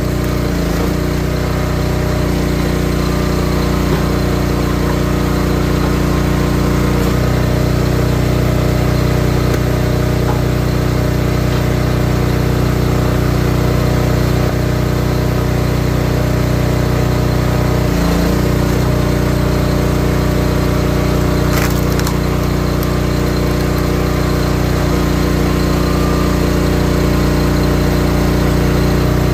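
Small gas engine of a Wolfe Ridge 28-ton high-output log splitter running steadily. Its note shifts a few times as the hydraulic pump takes and sheds load, and there is a sharp crack about three quarters of the way through.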